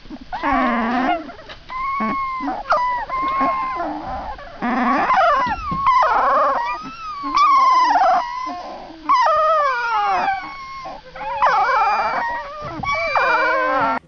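A litter of very young puppies whimpering and squealing, many high cries overlapping, each rising and falling in pitch.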